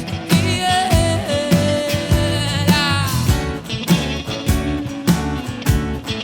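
Live pop-rock band playing a song: steady drum beat, bass and guitar, with a long wavering melody line held over the top.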